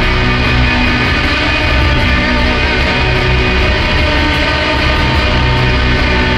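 Instrumental drone music from two guitars: a loud, dense wall of many held tones over noise, steady in level, with single notes slowly fading in and out.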